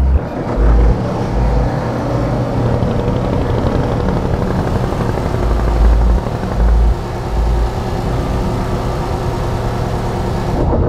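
Boat engine running at high throttle: a loud, dense mechanical drone with occasional heavy low thuds.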